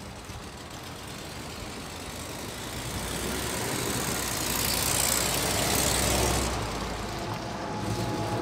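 1961 Rolls-Royce Silver Cloud II's V8 engine and tyres as the car drives past on a wet road. The sound grows louder as it approaches, is loudest about five to six seconds in as it goes by, then fades as it pulls away.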